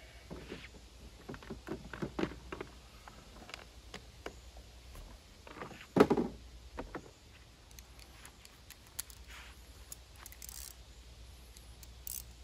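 Scattered small clicks and clinks of hand tools and parts being handled on a lawn mower during work on its air filter cover, with one louder knock about six seconds in.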